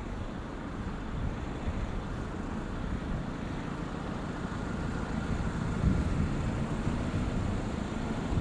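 Town street traffic: a van's engine running close by, a low rumble that swells about six seconds in.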